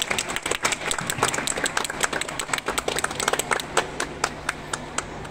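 Small audience clapping by hand, irregular individual claps that thin out and die away near the end.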